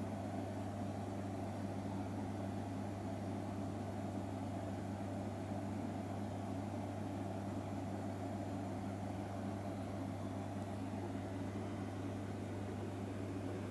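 Steady low machine hum with a faint hiss behind it.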